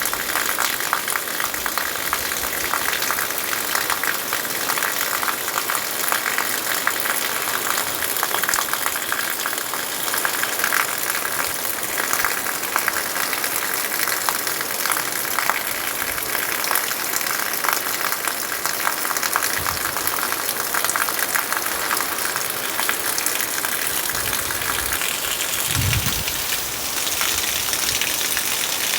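Heavy rain pouring steadily, a dense patter and hiss of drops hitting surfaces, with a brief low thud near the end.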